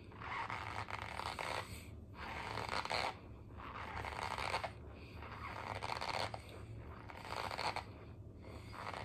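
Close-up chewing of a spoonful of powdery white food, a squeaky, scraping crunch repeating about once a second as the mouth works it.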